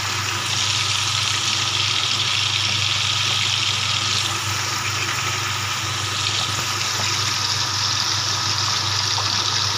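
Pieces of tofu frying in hot oil in a wok, a steady sizzle of bubbling oil.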